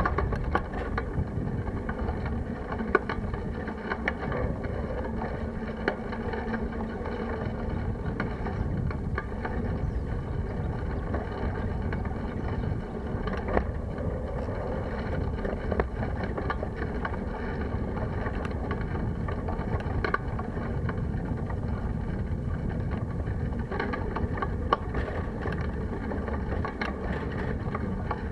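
Wind rushing over the microphone of a bicycle-mounted camera as the bicycle rolls along a path, with a few sharp knocks from the bike jolting over bumps.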